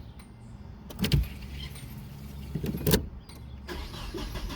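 Nissan 240SX engine being cranked by its freshly rebuilt starter motor without catching yet: a steady low churning with a couple of sharp clicks about one and three seconds in.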